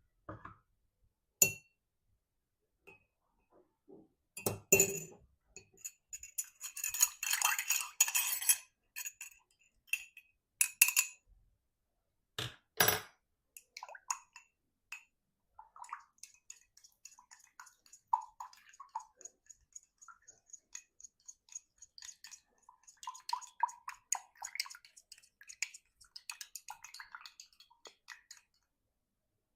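White paint being stirred into a glass of water, the stirrer clinking and tapping against the glass in quick small ticks, with a few sharper knocks and a denser clatter early on.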